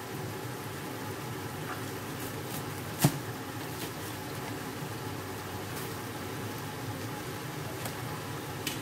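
Chicken feet simmering in a sauce in an open pot on the stove: a steady low bubbling hiss, with one sharp click about three seconds in.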